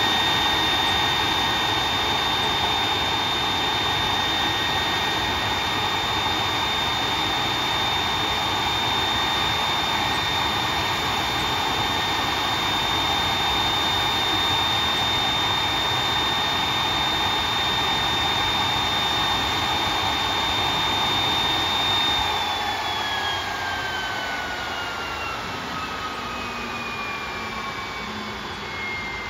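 General Electric CF6 turbofan on an Airbus A330-300 running steadily at ground idle with a high whine over a rushing roar. About 22 seconds in it is shut down: the whine slides down in pitch and the engine noise fades as it spools down.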